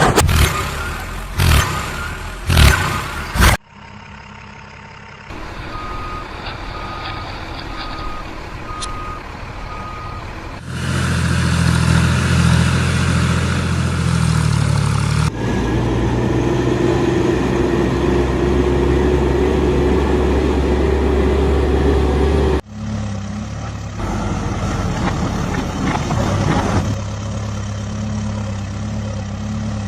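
Diesel engines of a backhoe loader and trucks running, with the sound changing abruptly several times between shots. The first few seconds hold loud buffeting or knocks. From about six to ten seconds in, a vehicle reversing alarm beeps steadily, about one and a half beeps a second.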